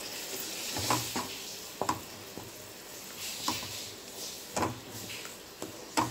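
Wooden spatula stirring and scraping a thick tomato-onion masala in a metal pan, knocking against the pan about six times over a low sizzle as the freshly added ground tomato fries down with the onions.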